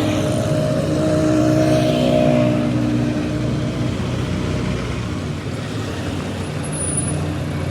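A motor vehicle's engine running at a steady pitch, strongest for the first three seconds or so and then settling into a lower, steadier hum.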